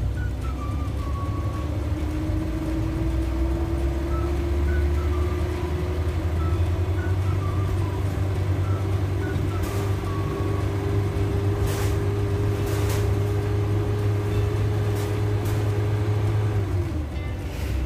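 Suzuki Carry's engine running as the van drives, heard from inside the cab as a steady low rumble whose pitch rises slowly as it gains speed, then falls near the end. A few short sharp clicks come in the second half.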